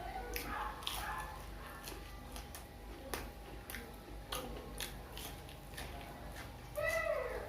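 Close-up crunching and chewing of crispy fried snacks (gorengan), a string of sharp crackly bites. Near the end a short pitched sound with a falling pitch cuts in.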